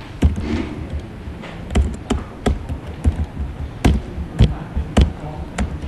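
Computer keyboard being typed on: about nine separate keystrokes at an uneven pace, each a sharp click with a low thud.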